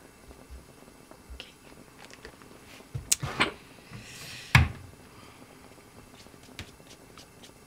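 Kitchen clatter from a metal cooking pot and utensils: a few sharp knocks and clicks about three seconds in, a short scrape, then the loudest knock about four and a half seconds in.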